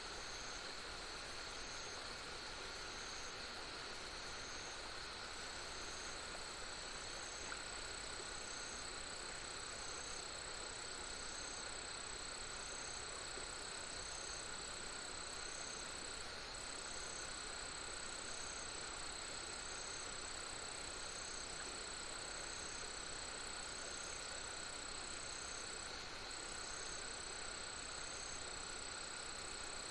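Insects such as crickets calling together: several steady trills at different pitches, one high trill breaking off briefly twice, and a short chirp repeating evenly about every second and a half, over a faint steady hiss.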